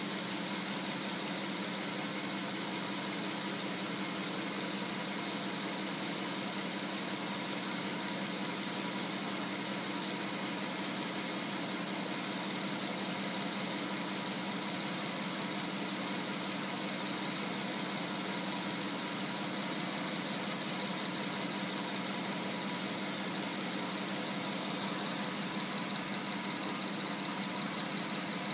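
Jaguar XJS 6.0-litre V12 engine idling steadily and evenly. The stable idle shows that a vacuum leak at the Vee top plate gasket and breather seals has been cured.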